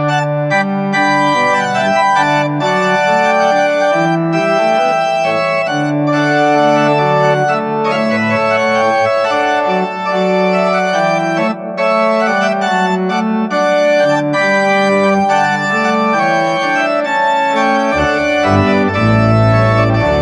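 Organ music: sustained chords moving slowly from one to the next, with deep bass notes coming in near the end.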